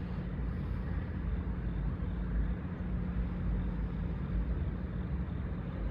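Steady low engine rumble of a vehicle, even throughout with no horn blowing.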